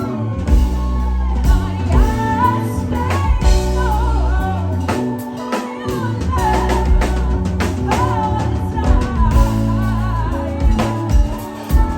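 Live band performing a slow soul ballad. A lead singer holds and bends sustained notes over bass guitar, drum kit, electric guitar and keyboard, with steady drum hits.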